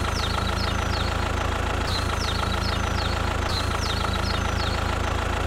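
Engine idling steadily with an even low hum and a knocking beat, with a run of short, high, falling chirps repeating over it.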